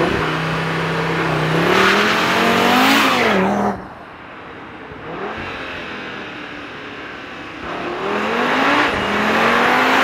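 2024 Audi RS3's 2.5-litre turbocharged five-cylinder engine, through its Audi Sport exhaust, accelerating hard with the engine note rising in pitch. The first run cuts off abruptly about four seconds in. After a quieter stretch, a second rising run begins near eight seconds.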